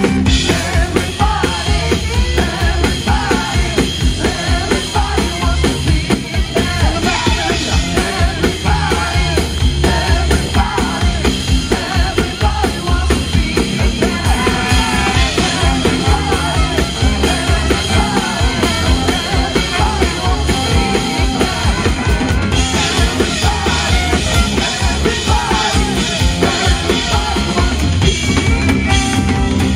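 Live band music with a steady drum kit beat.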